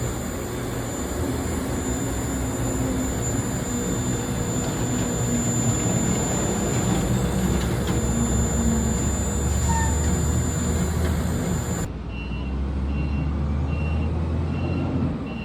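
Propane filling-station pump running steadily with a low hum and hiss while a tank is filled. After a cut near the end, a lower hum continues with a faint high beep repeating about once a second.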